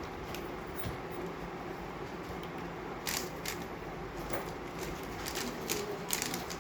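Scattered light plastic clicks and taps of a speedcube being handled, sparse at first and more frequent from about three seconds in, over a steady low hiss.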